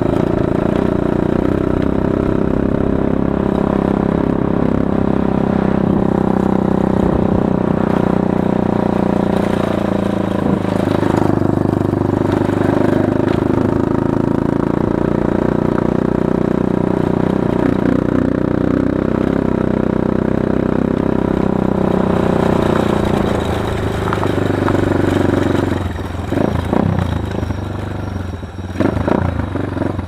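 Small motorcycle engine running steadily while riding on a gravel road. About three-quarters of the way through the engine note eases off and a run of clattering knocks follows, as of the bike jolting over rough ground.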